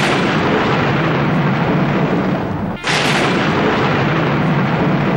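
Two loud, thunder-like booms, a sound effect in an audio drama. One hits at the start and one about three seconds in; each comes in suddenly and dies away slowly.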